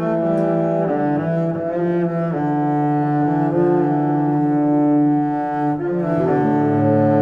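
Background music: low bowed strings holding long notes that change every second or two.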